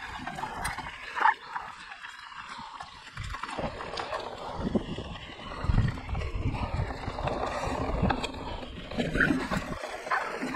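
Mountain bike ridden over a dirt trail: tyres rolling on rough ground and the bike rattling over bumps, with uneven low thumps and a couple of sharper knocks.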